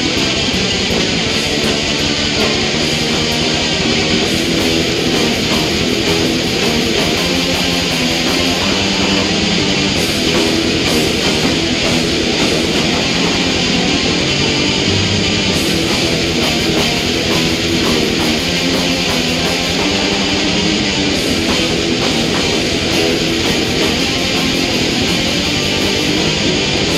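Heavy metal music: a dense wall of distorted electric guitars with drums, playing continuously at full level.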